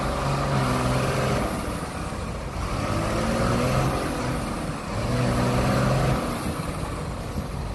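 Heavy truck or backhoe engine revving in three surges, each a second or so long, dropping back in between, during a stuck-truck recovery.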